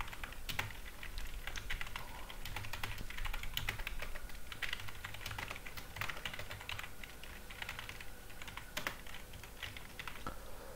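Typing on a computer keyboard: an irregular run of quick keystroke clicks as a line of code is entered.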